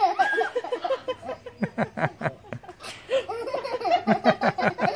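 A woman laughing heartily in quick, repeated ha-ha bursts, many of them falling in pitch.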